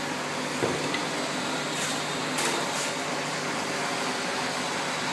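Steady machine hum and hiss of a running induction melting furnace, with a few faint light ticks about two to three seconds in.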